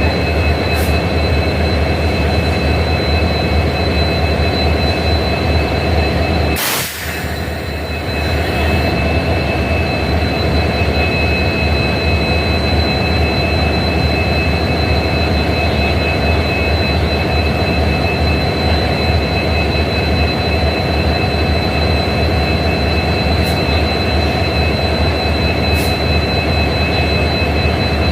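Two EMD WDP4D diesel locomotives idling together: their 16-cylinder two-stroke engines give a steady low hum, with two steady high whines above it. About seven seconds in, a short burst of noise covers everything for a second or so while the hum dips.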